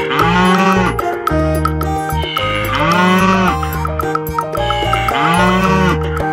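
Cow mooing three times, each call rising and then falling in pitch and lasting under a second, about two and a half seconds apart.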